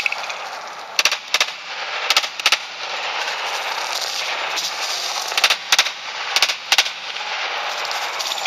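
Pistol shots fired in quick pairs, four double-taps about a third of a second apart within each pair, over a steady background hiss.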